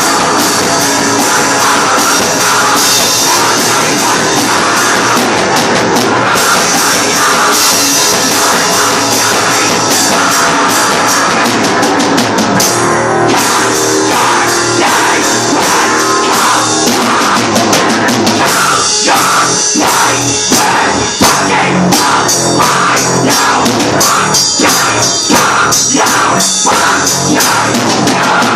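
A band playing a loud heavy rock song, with a drum kit driving the beat; the drum hits stand out more sharply in the second half.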